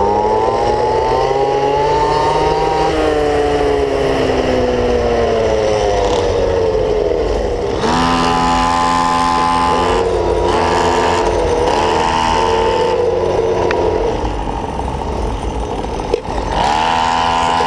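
Small two-stroke engine of a gas-powered stand-up scooter running under throttle as it is ridden, its pitch falling and rising with the throttle, revving up about halfway, easing off several times, and revving up again near the end.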